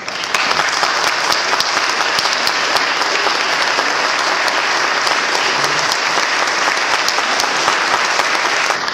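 Audience applauding steadily, breaking out suddenly and dying away at the end.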